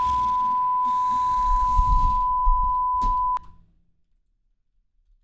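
A single steady electronic beep tone, held for about three and a half seconds over a low rumble, then cut off abruptly with a click.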